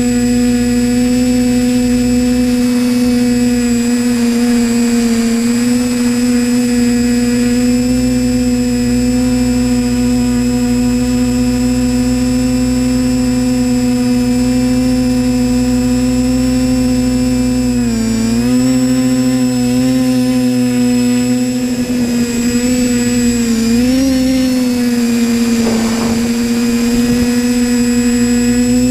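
Disco Pro multirotor drone's electric motors and propellers whining steadily, heard close up from the camera on board. The pitch dips and recovers briefly a few times in the last third as the throttle changes.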